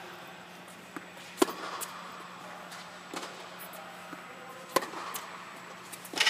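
Tennis rally: a tennis ball struck by racquets and bouncing on a hard court, heard as a series of sharp pops, the loudest about a second and a half in and near five seconds, echoing in the large tennis dome. A steady low hum runs underneath.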